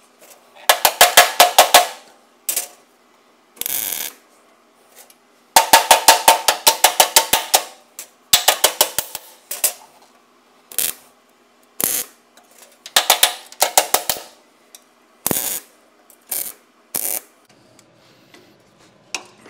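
Hammer striking the steel patch panel on a car chassis side rail in quick bursts of rapid metallic blows, about eight or nine a second, each burst lasting a second or two with pauses between, over a faint steady hum.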